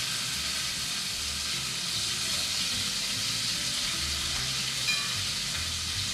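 Cubes of tuna sizzling steadily in hot oil in a non-stick frying pan, with one short clink about five seconds in.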